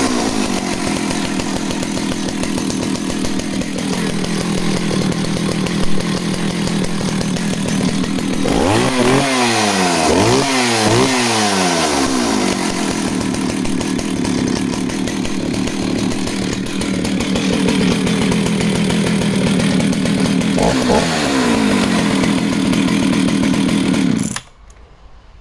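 Jonsereds 80 two-stroke chainsaw running on a fast, steady idle with the throttle lock set. About a third of the way in it is revved up and down about four times, settles back, is revved once more later, and cuts off suddenly near the end.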